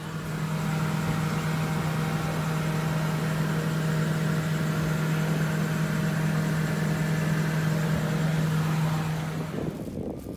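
Aquarium tank pumps and filters humming steadily, with a hiss over the hum. The hum stops near the end.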